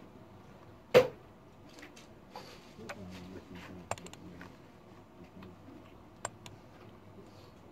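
Scattered clicks and taps of a computer mouse and keyboard during desk work, with one louder knock about a second in, over faint office room tone.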